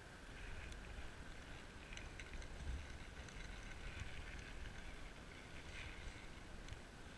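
Faint wind rumbling on the microphone over a steady outdoor hiss, with a few light ticks here and there.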